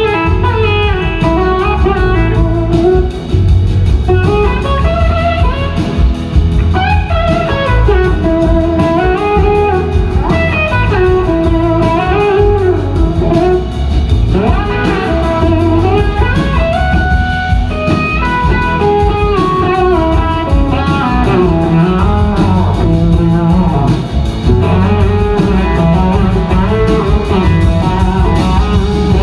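Live band playing a blues-rock number, with a lead electric guitar played with a slide carrying a gliding melody line over bass and drums.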